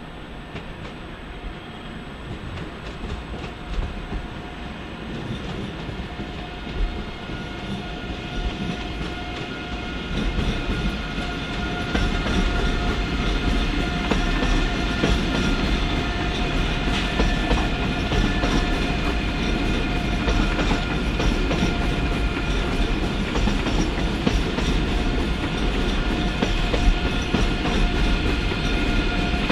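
Electric train moving slowly through the station tracks and getting louder, its wheels clacking over rail joints and points, with a steady whine from its electrics.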